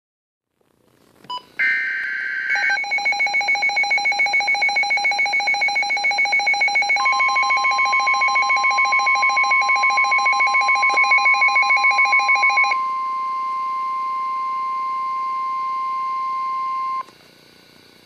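NOAA Weather Radio receiver going into alert: a second-long warbling burst of digital header data, then the radio's own electronic alarm beeping at about five pulses a second. A steady warning tone joins about seven seconds in, holds alone after the beeping stops near thirteen seconds, and cuts off about a second before the end.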